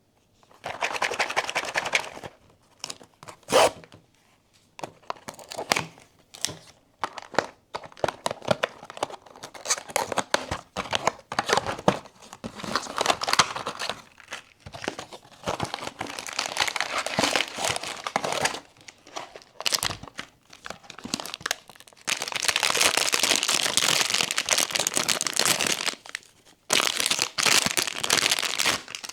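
Blind-box packaging being crinkled and torn open by hand, crackling in irregular bursts, with one longer unbroken stretch of crinkling near the end.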